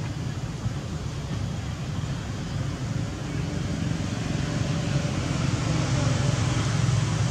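Steady low outdoor background rumble with no distinct calls, growing slightly louder in the second half.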